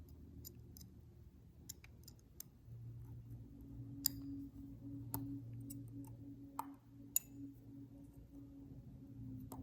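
Scattered light clicks and taps from a vintage Casio digital watch's plastic case being handled and turned over, over a low steady hum.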